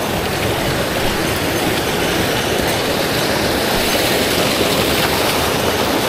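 Mountain stream water rushing, a loud, steady noise without a break.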